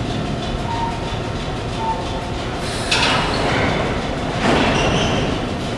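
Vintage 1930s New York City subway cars (R1–R9 types) pulling out of a station: a steady rumble with two sudden louder bursts of noise, about three seconds in and again a second and a half later.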